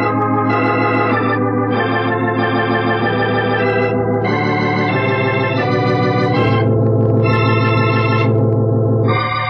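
Organ music bridge: a series of held chords that change every second or two over a sustained low bass note, swelling slightly toward the end before a final chord.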